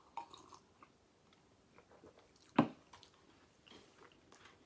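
Faint sipping of tea and chewing of shortbread, with one sharp knock about two and a half seconds in as a ceramic mug is set down on a table.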